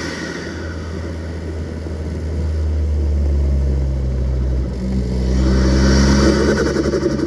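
Turbocharged engine of a modified Ford Focus ST running under load. It eases off at the start, then builds twice with its pitch stepping up, and a rising hiss joins the second build before it lets off at the very end.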